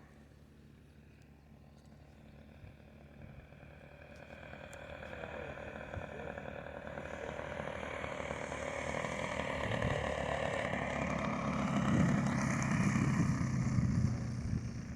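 Radio-controlled model airplane flying past. Its sound grows steadily louder over about ten seconds, is loudest near the end, then drops away.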